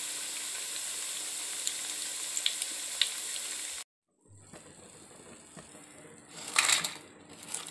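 Rice-flour chekkalu deep-frying in hot oil: a steady sizzling hiss with small pops, which cuts off abruptly about four seconds in. Near the end, the fried crisps clatter as they are tipped from a slotted steel spoon onto a steel plate.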